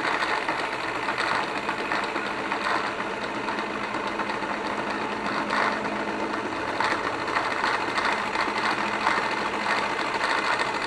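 Milling machine spindle running at about 1000 RPM under power feed, its cutter facing the flange of a cast-iron tractor manifold: a steady cutting noise with a low hum underneath.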